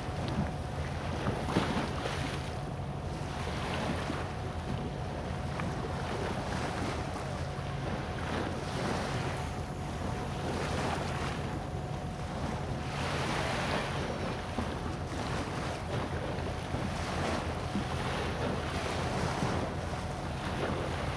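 Wind buffeting the microphone and small waves washing against a seawall, the noise swelling and fading every second or two, over a steady low hum.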